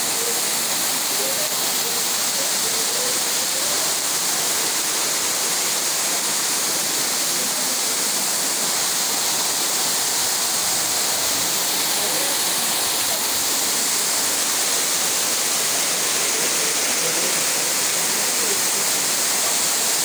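Waterfall pouring down a rock face onto stones and shallow water: a steady, even rush of falling water.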